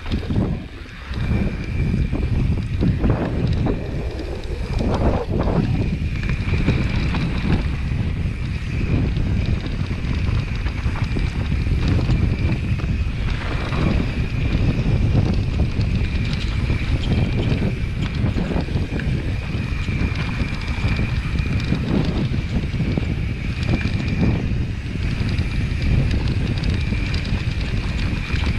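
Scott Ransom enduro mountain bike descending a bumpy dirt trail: heavy wind noise on the microphone over the rumble of the tyres, with frequent knocks and rattles from the bike over the bumps and a steady high whine throughout.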